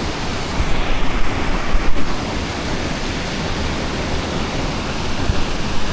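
Waterfall roaring steadily, a close, even rush of falling water. Wind buffets the microphone in a few louder low gusts between about half a second and two seconds in.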